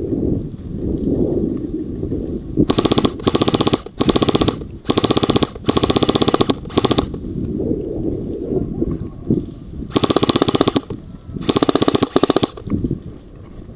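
Airsoft guns firing short full-auto bursts of rapid clicks: about six bursts starting about three seconds in, then three more about ten seconds in, over a low rumble.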